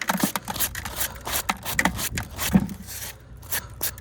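Irregular scraping, clicks and knocks as metal scrap is handled and pulled off a large magnet-fishing magnet; the loudest knock comes about two and a half seconds in.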